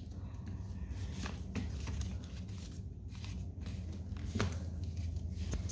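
Sheet of paper rustling and crinkling as hands fold and crease it flat on a wooden floor, in short scattered rustles with a few soft taps, over a steady low hum.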